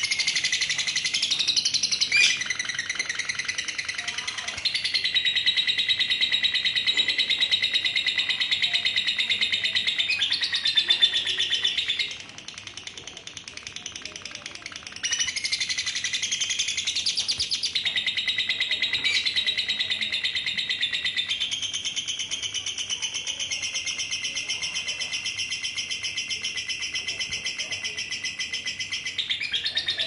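Female lovebird singing a long, rapid chattering trill (the 'ngekek' song), breaking off for about three seconds near the middle before carrying on.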